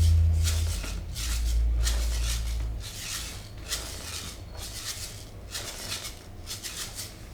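Hands rubbing over skin in repeated massage strokes, about two a second, with a low hum through the first three seconds.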